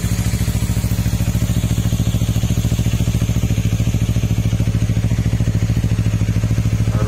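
Yamaha MT-03's 321 cc parallel-twin engine idling steadily through a Yoshimura R11 slip-on muffler. It gives an even, low exhaust putter that holds a constant pitch.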